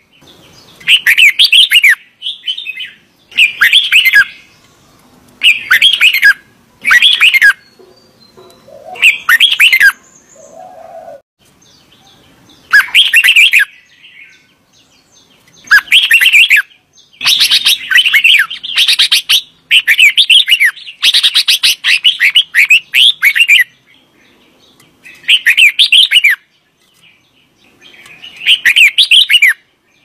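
Red-whiskered bulbul singing: short warbling phrases of about a second each, with pauses between them, and a quicker run of several phrases in a row in the middle.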